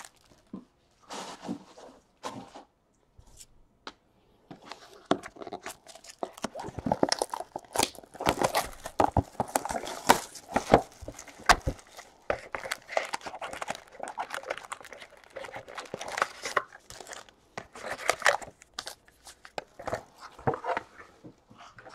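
Trading card packs and their cardboard box being handled and torn open: irregular crinkling and tearing of pack wrappers with light taps and rustles, sparse at first and busier from about five seconds in.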